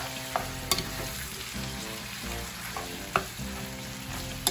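Spinach pasta and bacon sizzling in a stainless steel skillet while a spatula stirs and tosses them, with a few sharp clicks of the spatula against the pan.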